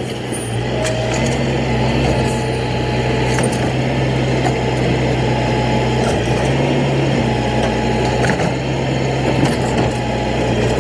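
A toy garbage truck's small motor running steadily with a low hum.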